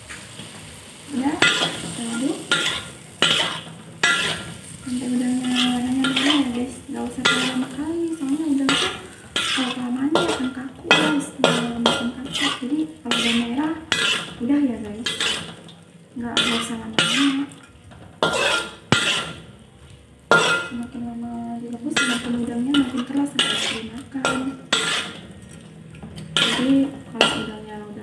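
A metal spatula scrapes and knocks against a wok in quick, irregular strokes during stir-frying, with oil sizzling underneath. A wavering low tone comes and goes between the strokes.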